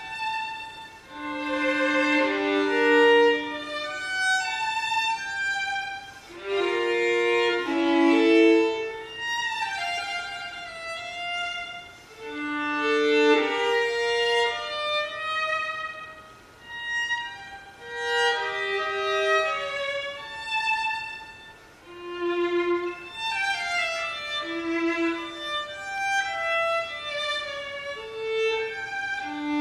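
Solo violin playing unaccompanied, a classical piece in phrases that swell and fade, with several notes sounded together at times.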